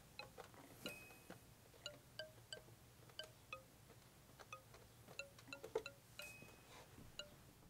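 Soft background music of sparse, tinkling chime-like notes at scattered pitches.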